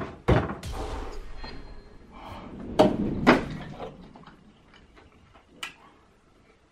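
Handling knocks and thumps as a cardboard milk carton is picked up off a wooden desk and opened: a sharp knock just after the start, rustling, then two louder knocks about half a second apart around three seconds in, and a smaller one near the end.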